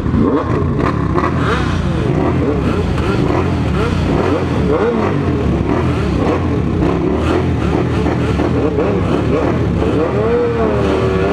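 Sport motorcycle engines running with the revs rising and falling, the pitch swinging up and down in a wavering sweep near the end.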